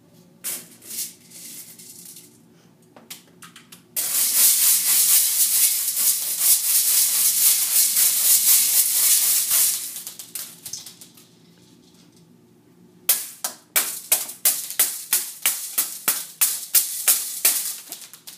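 Small plastic beads rattling in a metal colander as they are stirred and shaken by hand: a few short rattles at first, a loud continuous rattle from about four to ten seconds in, a pause, then a fast run of separate sharp clattering strikes near the end.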